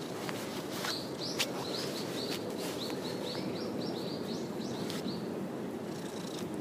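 A small bird calling in a quick run of short, high chirps, about four a second, starting about a second in and stopping near the end. Under it, a steady low hum from the ginger tabby cat purring as it is stroked.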